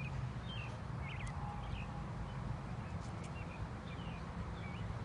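Small birds chirping repeatedly over a steady low background rumble, with a few faint sharp clicks.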